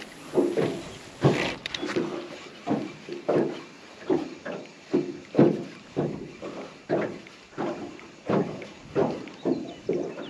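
Oars of a small rowing boat knocking in their rowlocks, a steady run of hollow knocks about one to two a second.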